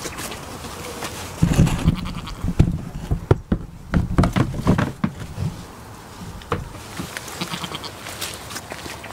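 Goat bleating, with a cluster of knocks and rustling between about one and a half and five and a half seconds in.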